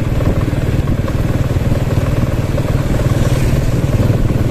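Motorbike engine running steadily while being ridden along a road, an even low rumble with no change in speed.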